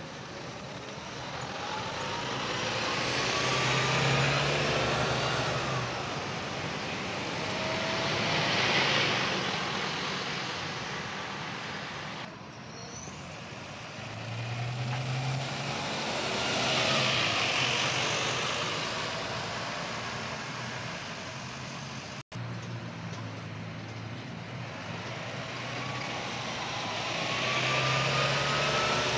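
Heavy road vehicles passing one after another, each going by in a swell that builds and fades, with a rising engine whine as they accelerate. The sound cuts abruptly twice.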